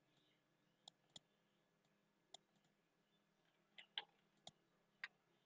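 Faint computer mouse clicks, about seven of them, scattered irregularly over near silence.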